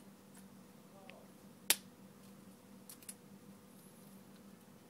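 Sharp click about a second and a half in, then a couple of fainter clicks a little later, from the iPhone 4's main board and small parts being handled and pressed into the phone's metal housing. A faint steady hum runs underneath.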